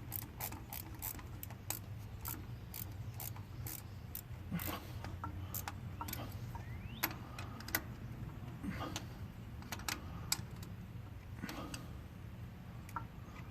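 Sharp metallic clicks and clinks of hand tools and a wire terminal being worked onto a tractor starter, quick at first and then sparser, over a steady low hum.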